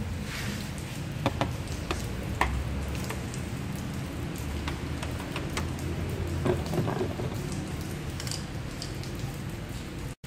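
Scattered sharp clicks and light scraping as a flat-head screwdriver pries plastic push clips out of a car's plastic wheel-well splash shield, over a steady low hum.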